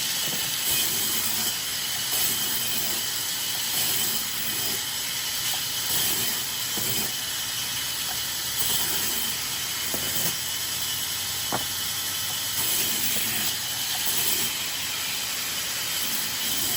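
Sawmill wood-cutting machinery running: a steady, loud hissing noise that swells every second or two.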